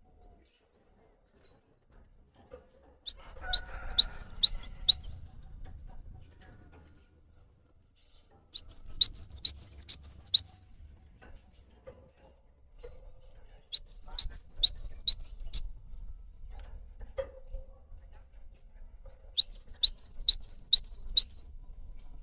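Cinereous tit (gelatik batu) in full song: four bursts of about two seconds each, spaced roughly five seconds apart, each a fast run of high notes that drop sharply in pitch.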